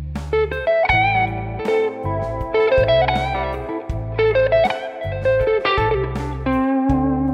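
Electric guitar playing single-note A minor pentatonic phrases over a backing track, with a bass part pulsing underneath and regular percussive clicks. Near the end one note is held for about a second.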